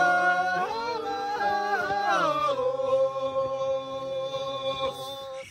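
A group of people singing unaccompanied, the tune stepping between notes and then settling on one long held note from about halfway through.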